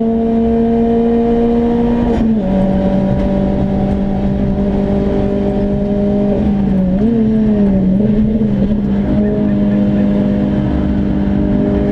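Renault Clio RS engine running steadily under way, heard inside the car's cabin over a bed of road and tyre noise. Its note steps down about two seconds in, dips and wavers around seven to eight seconds, then holds steady.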